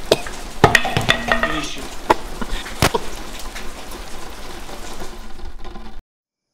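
Several sharp thuds of blows landing on a man, with his grunts and groans of pain between them, over a steady hiss that fades. The sound cuts off abruptly near the end.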